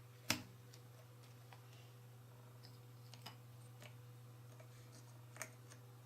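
A few light clicks and taps of jigsaw puzzle pieces being handled and set down. The loudest comes about a third of a second in, with smaller ones later, over a faint steady low hum.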